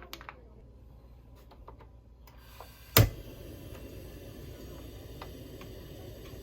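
Portable camping gas stove being lit: gas starts to hiss about two seconds in, a single sharp igniter click comes about a second later, and the burner then runs with a steady hiss and a few faint ticks.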